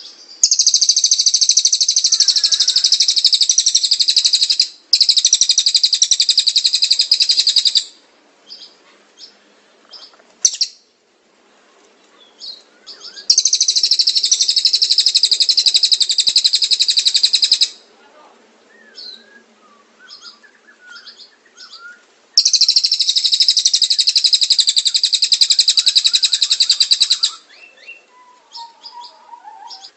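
A canary and a cililin sing in alternation: four long, loud, very rapid high trills, each lasting about four seconds, separated by quieter scattered chirps and short whistled notes.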